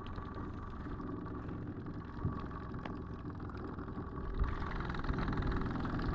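Small boat motor running steadily at idle, a low even hum, growing a little louder about four seconds in.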